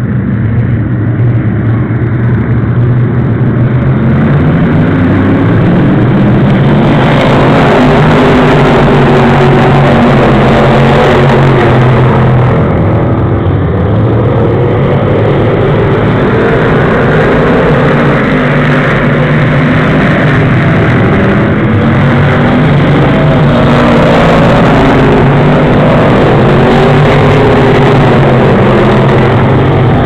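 A pack of Pro Stock stock cars racing past on an oval track, their engines running at high revs. The sound builds over the first several seconds as the cars come by and stays loud as they keep passing.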